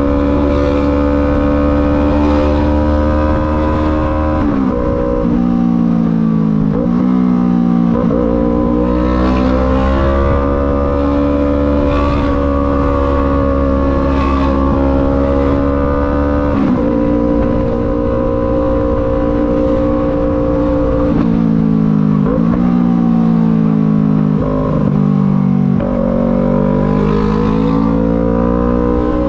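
Yamaha MT-03 engine heard from the rider's seat, pulling under load; its pitch drops sharply at each gear change and then climbs again, several times, with steady cruising stretches between.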